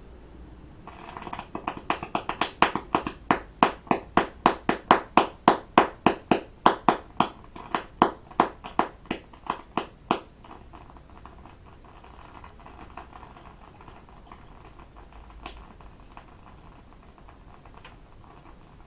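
A chemical mixture burning in a porcelain dish, going off in a rapid series of sharp pops, about three a second, over a hiss. The pops build up in loudness and stop abruptly about ten seconds in, leaving faint crackling.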